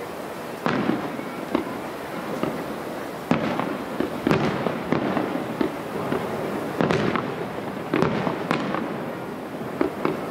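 Aerial firework shells bursting: a series of sharp bangs at uneven spacing, about one a second, each followed by a rolling echo.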